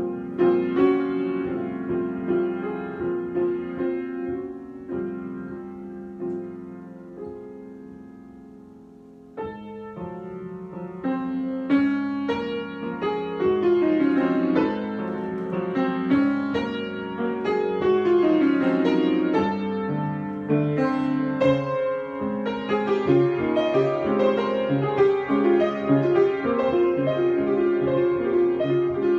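Solo piano improvisation. A soft passage of held chords dies away, then about a third of the way in a new phrase enters and builds into fuller, louder chords with running notes.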